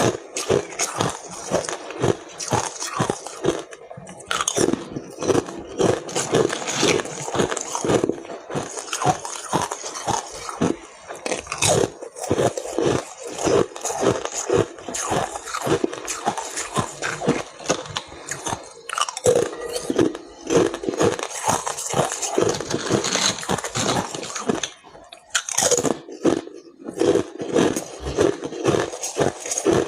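Ice being bitten and chewed close to the microphone: a continuous run of sharp, brittle crunches, several a second.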